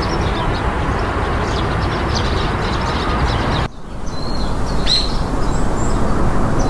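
Steady road and engine noise of a car driving slowly. It drops suddenly a little past halfway, then swells back up, and birds chirp a few times, short high calls.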